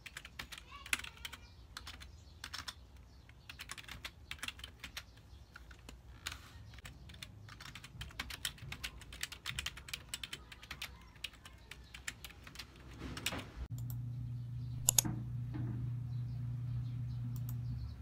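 Typing on a keyboard with round, typewriter-style keycaps: quick, irregular key clacks. The typing dies away about thirteen seconds in, and a steady low hum takes over.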